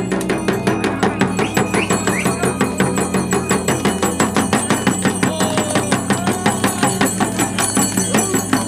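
A jhakri shaman's dhyangro, a laced double-headed frame drum, beaten in a fast, steady rhythm of about five beats a second, the drumming of a shaman in trance.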